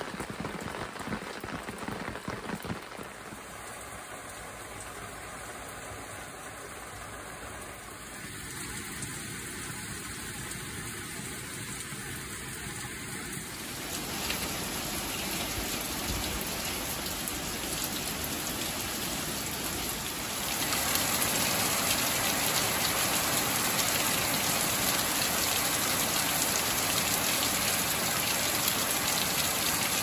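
Rain falling steadily on puddled concrete and wet leaves. It gets louder in two steps, about halfway through and again about two thirds of the way in, ending as a heavy downpour.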